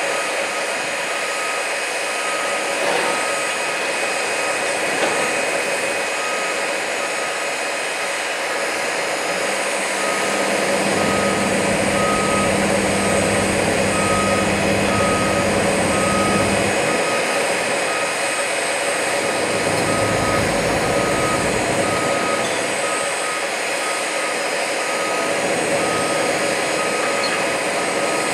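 Diesel engines of a Cat hydraulic excavator and an articulated dump truck running steadily, with a reversing alarm beeping about once a second. A deeper engine hum joins at about nine seconds and drops out at about seventeen.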